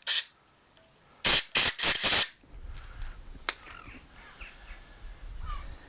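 Compressed-air blow gun giving short blasts of hiss to clear drill swarf out of a drilled-out stud hole in a cast final drive housing: one blast right at the start, then three quick blasts about a second later.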